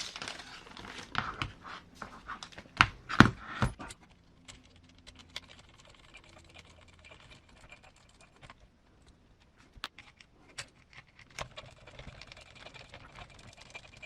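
Clicks and taps of small tools and plastic and metal parts being handled while the shocks are unhooked from an RC crawler's chassis, with a few sharper knocks about three seconds in and fainter scattered clicks after.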